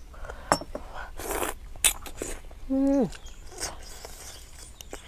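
Close-miked eating sounds: squid being bitten and chewed, with a few sharp clicks and a short falling hum from the eater about three seconds in.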